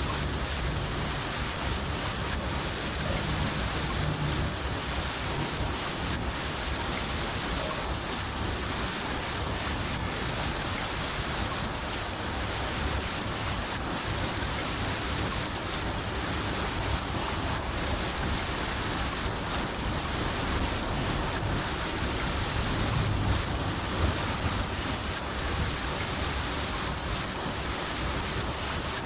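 A cricket chirping in a steady, even rhythm, about three chirps a second, with two brief pauses in the second half, over the steady hiss of rain.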